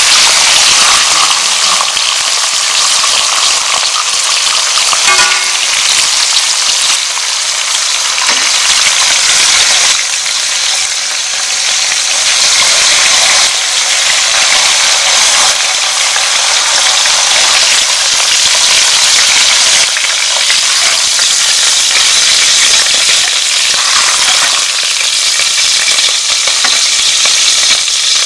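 Cá he fish frying in hot oil, a steady, dense sizzle.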